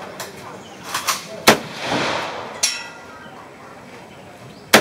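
AK-47 rifle in 7.62×39 mm firing single shots: two loud cracks about three seconds apart, each followed by a rolling echo. Fainter sharp cracks fall between them.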